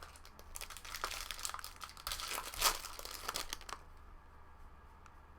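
Foil wrapper of a baseball card pack crinkling as it is handled and torn open. A run of crackling starts about half a second in and stops shortly before four seconds, loudest past the middle.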